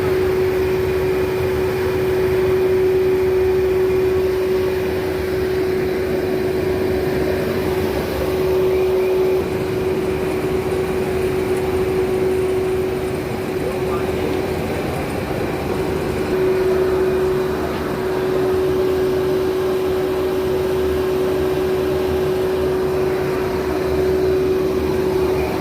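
Old non-IBR steam boiler running: a steady, loud mechanical din with a constant hum that holds throughout.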